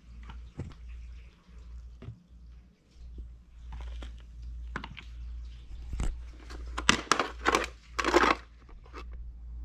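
Clicks and knocks of tools being handled and set down on a concrete floor, a cordless impact driver and a plastic bit case, growing busier and louder near the end, where the case slides with a short scrape.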